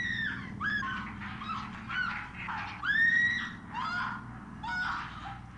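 A woman screaming repeatedly in the film's soundtrack: a series of high-pitched shrieks, with long held screams at the start and about three seconds in, between shorter cries.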